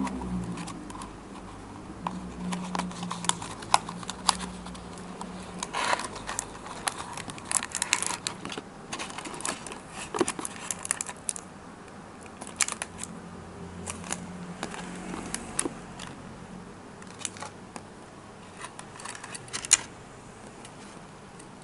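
Hands handling a small cardboard box and a clear plastic blister tray while unpacking a die-cast model car: irregular clicks, taps and crinkles of the thin plastic and card, over a faint low hum.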